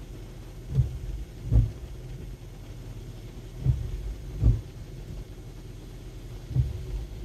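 Windshield wipers on an intermittent setting, heard from inside the car: a pair of short low thuds a little under a second apart with each sweep of the blades, the pairs repeating about every three seconds, over a steady low rumble.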